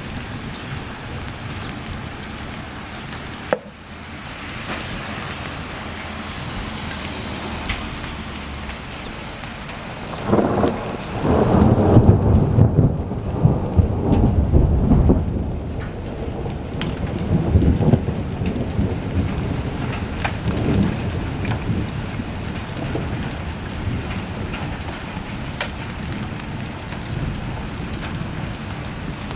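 Steady rain during a spring thunderstorm. About ten seconds in, a long roll of thunder rumbles for several seconds and is the loudest sound, followed by a few weaker rumbles. A single sharp knock comes a few seconds in.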